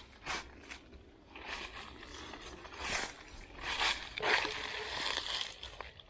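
Footsteps crunching and rustling through dry fallen leaves and undergrowth, in irregular steps that grow louder and busier in the second half.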